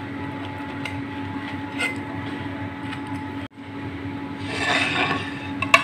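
A brief scrape, about four and a half seconds in, as a cut wedge of baked sandwich is dragged across a wooden cutting board, followed by a sharp click. A steady low hum runs underneath.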